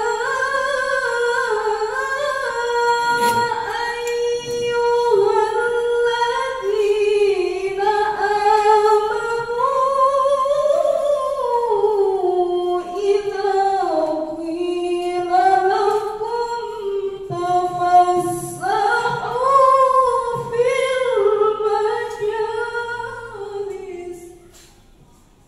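A woman's solo voice chanting Quran verses in the melodic recitation style (tilawah), unaccompanied, in long ornamented phrases whose pitch glides up and down. The voice stops about a second before the end.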